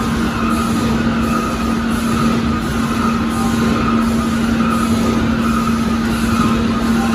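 Machinery of an automated corrugated-cardboard production line running steadily: a constant low hum under a hiss, with a soft pulse repeating a little faster than once a second.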